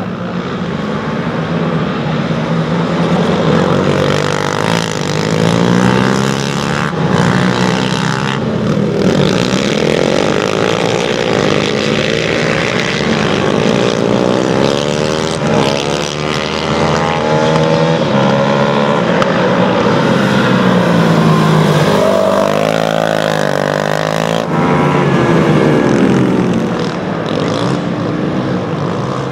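Several racing quad bikes running hard around a track, their engines overlapping and revving up and down, with the pitch repeatedly rising and falling.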